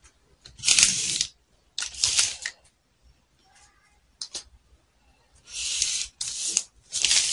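Several short scratchy strokes of a felt-tip marker drawn across pattern paper along a ruler, each lasting under a second, with a short tap in between.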